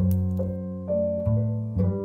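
Slow piano music: notes and chords struck about every half second, each ringing on and fading.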